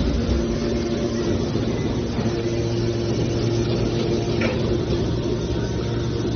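Metal baler's hydraulic power unit running with a steady hum, with a brief click about four and a half seconds in.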